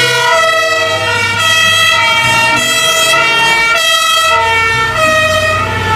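German fire engine's two-tone siren (Martinshorn) sounding continuously, switching back and forth between a higher and a lower pitch about once a second.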